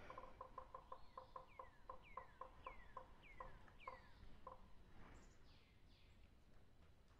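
Faint bird calls: a quick run of short, evenly spaced notes, about four a second, overlaid from about a second in by five falling whistles about half a second apart, with a few fainter falling calls after the run stops.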